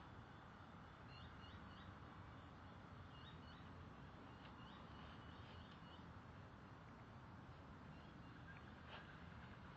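Near silence: a faint steady background hiss with small birds chirping faintly in a few short runs.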